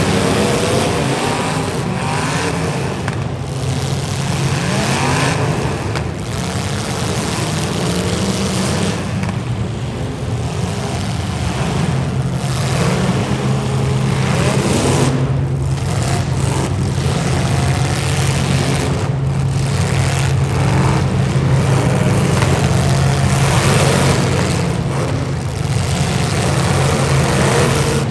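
Demolition derby car engines running and revving, their pitch rising and falling again and again over a steady low drone.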